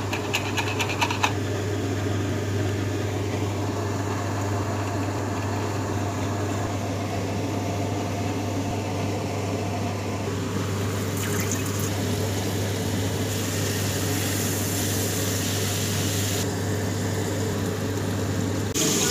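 Home-kitchen cooking sounds over a steady low hum: a run of quick clicks in the first second or so as eggs are beaten in a glass bowl, then, in stretches later on, the hiss of flour-coated prawns deep-frying in oil.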